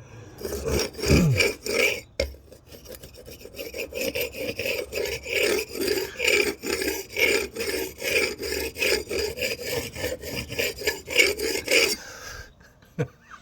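Repeated rasping strokes of a hand tool being worked over a painted cedar beam, scraping off loose paint chips; the strokes stop about a second before the end.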